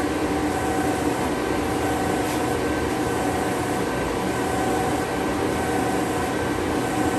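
Harig 12" x 24" hydraulic surface grinder running: a steady mechanical hum with a few held tones over an even whir, unchanging throughout.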